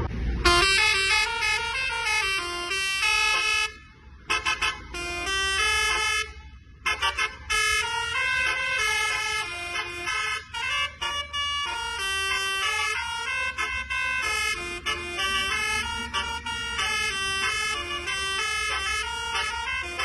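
Bus telolet horn, a Basuri-type set of electric air horns, playing a quick multi-note melody over and over, with two short breaks about four and six and a half seconds in. A steady low rumble from the bus's engine runs underneath.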